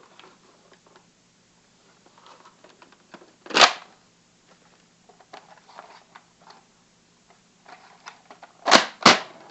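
A Nerf Mega Magnus toy blaster being handled: light plastic clicks and rattles, with three short, loud rushing bursts, one near the middle and two in quick succession near the end.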